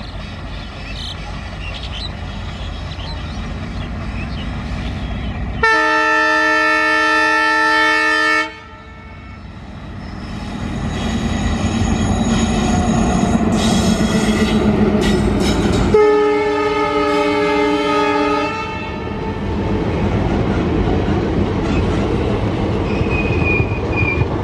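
ALCo diesel locomotive running under load with a heavy, steady rumble that grows louder as it works. Its horn sounds two long blasts, about six and sixteen seconds in. The first blast cuts off suddenly.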